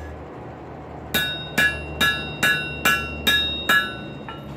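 Hammer blows on a 211 lb solid-steel anvil, seven strikes at about two a second followed by one lighter tap. Each blow leaves the anvil ringing with a bright, clear tone.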